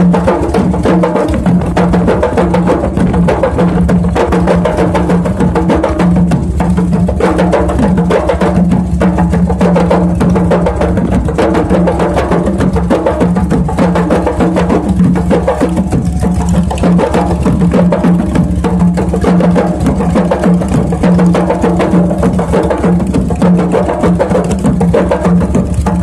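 An ensemble of Malay frame drums and larger barrel drums beaten by hand together in a dense, continuous rhythm, over a steady low hum.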